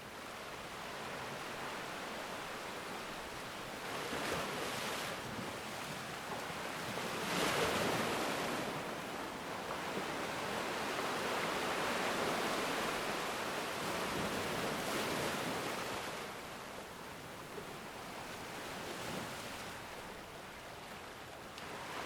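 Ocean surf breaking and washing up a black sand beach: a continuous rush of waves that swells several times, loudest about seven seconds in, and eases off near the end.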